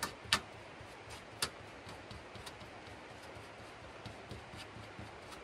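Three sharp clicks in the first second and a half, then a few faint ticks over a low steady hiss: small handling noises of camp kit being worked by hand.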